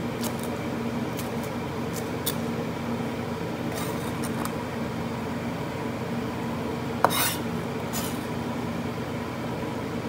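A chef's knife knocking a few scattered times on a plastic cutting board as shredded lettuce is chopped and scraped up, with one louder knock and scrape about seven seconds in, over a steady hum.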